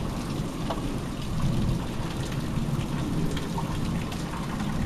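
Thunderstorm: rain falling with scattered drop ticks, and a low rumble of thunder underneath.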